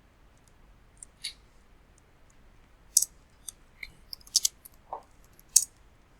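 Irregular sharp clicks of a computer mouse and keyboard, about ten of them, unevenly spaced, a few louder than the rest.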